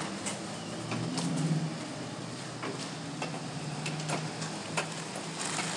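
A low steady hum with a brief swell about a second in, and scattered sharp clicks.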